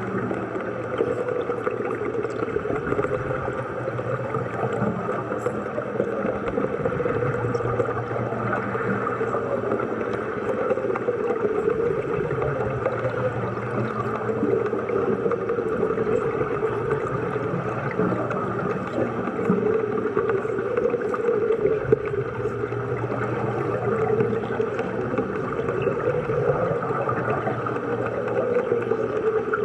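Steady underwater bubbling and rushing, with a low hum beneath it.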